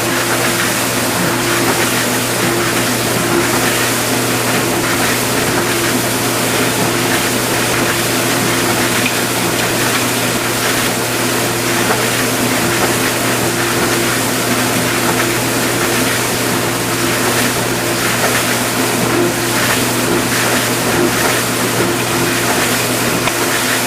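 Vintage KitchenAid Supurba KDS-18 dishwasher running a cycle: a steady motor-and-pump hum with water spraying and splashing inside the tub.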